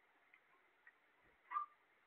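Parakeets moving in a wire cage: one short, sharp click about one and a half seconds in, with a couple of fainter ticks before it, over faint room tone.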